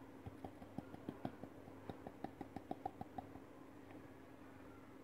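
Faint, quick taps and ticks as a glass bowl of wheat flour is shaken out over a steel mixing bowl, coming faster for about three seconds and then stopping.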